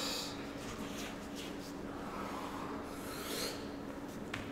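Two people breathing hard with short hissing exhales while doing inchworms, with faint scuffs of hands and shoes on the gym floor over a low steady hum.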